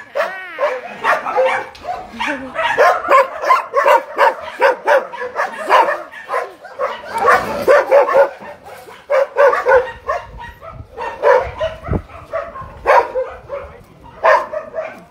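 Many shelter dogs barking at once from their kennels: a dense chorus of short, overlapping barks and yelps, several a second.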